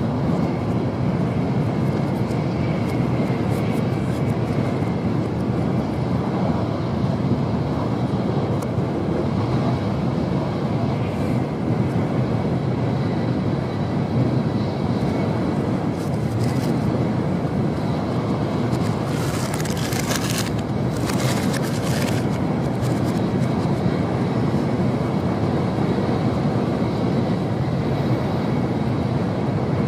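Tokaido Shinkansen train running at speed, heard from inside the passenger car: a steady low rumble and rush of wheels and air. About two-thirds of the way through, two short bursts of sharper hiss rise over it.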